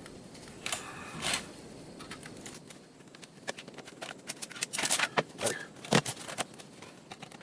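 Clicks, taps and knocks of an old Dell laptop's case being handled and worked at to take it apart: two clicks about a second in, then a busier run of clicks and knocks, loudest near the end.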